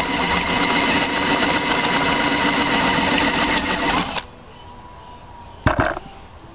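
Electric drill running steadily, spinning a cutter in a 6.5 diesel cylinder head's bolt hole to open it up for a head-stud O-ring. It stops about four seconds in, and a short knock follows near the end.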